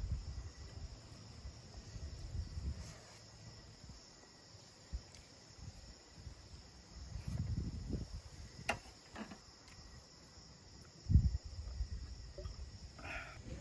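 Crickets chirring steadily in the night, with a few faint clicks of a utensil against a metal plate and a single low thump near the end.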